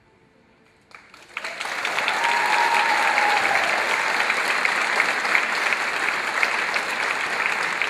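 Audience applauding at the end of a stage dance: faint fading music gives way to near silence, then clapping breaks out about a second in, swells within half a second and holds steady and loud.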